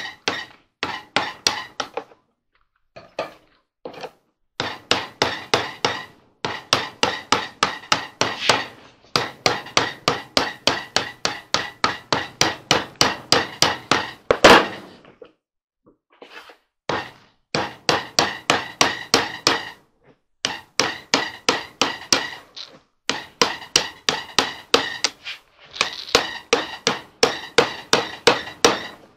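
Hammer tapping a flat blade along the rim of a clothes-dryer door, cutting away the old door felt and its glue. Rapid light strikes, about four a second, come in runs of several seconds with short pauses and a faint metallic ring, with one harder blow about halfway through.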